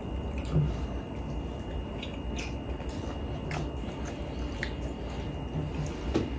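Close-miked chewing and biting of food: soft wet squishing with scattered faint clicks of mouth and teeth.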